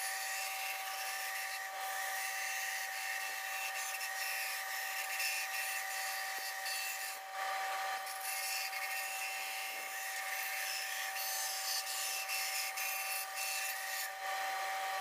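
Shop-built band saw with a wooden frame running and cutting a curve through thin wood strips: a steady whine over the hiss of the blade in the wood.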